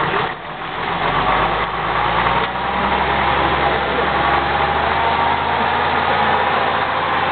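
Saurer M8 eight-wheeled truck's engine running as the truck crawls over rough ground, growing louder about two and a half seconds in.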